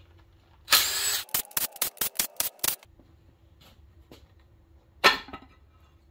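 A tool working on the bolts of an LS engine's front timing cover. About a second in there is a short burst of noise, then a quick run of sharp clicks, and one more short burst near the end.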